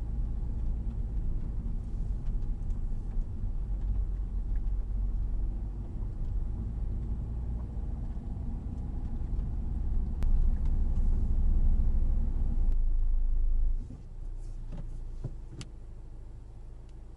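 Honda Civic Type R's engine and road noise heard from inside the car while driving, a steady low rumble. About 14 seconds in the noise drops away sharply, leaving a fainter low hum and a few light clicks.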